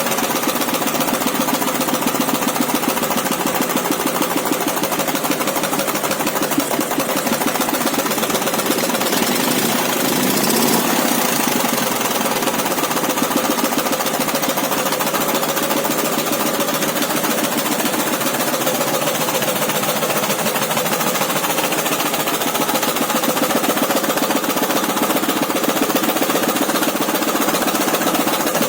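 Dnepr motorcycle's flat-twin engine running steadily with a fast, even knocking, firing on its left cylinder only. The owner puts the knock down to a loose nut on the generator drive gear.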